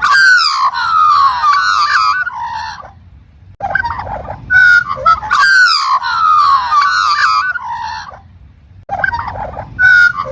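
Magpie-lark calling in loud bouts of ringing notes, many of them sliding down in pitch. The bouts come about every four and a half seconds, with short quieter pauses between them.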